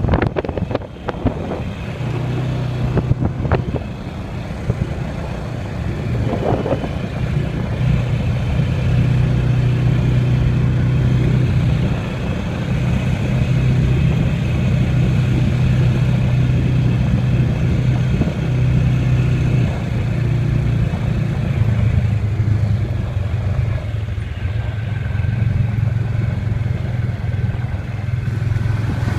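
ATV engine running steadily as it rides along a bumpy dirt trail, a constant low drone, with a few knocks and rattles from the bumps in the first several seconds.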